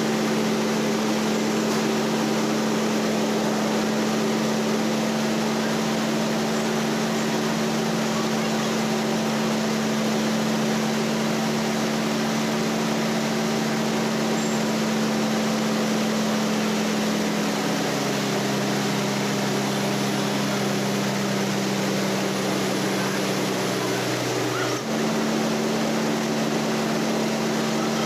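Trailer-mounted rice mill with a double polisher running, a steady machine hum. Several seconds past the middle the hum drops to a lower pitch, dips briefly, then returns to its first pitch.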